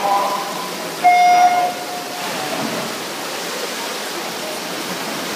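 Electronic swimming start signal sounding once, a single pitched beep lasting just over half a second about a second in, starting the 100 m freestyle race. After it, a steady wash of splashing water and pool-hall noise as the swimmers go in.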